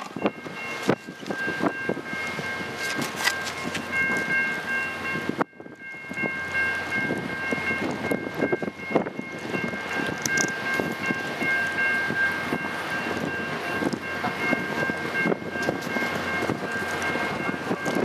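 Via Rail passenger train of stainless-steel Budd cars rolling slowly past at close range, wheels clicking over the rail joints, with a steady high-pitched whine of several tones held throughout. The sound drops out briefly about five seconds in.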